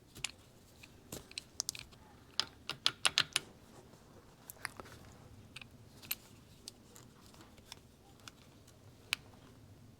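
Small metal engine parts clicking and clinking as the kickstarter idler gear is handled and fitted into the motorcycle engine case. A quick run of sharper clicks comes between about two and a half and three and a half seconds in, with single ticks scattered through the rest.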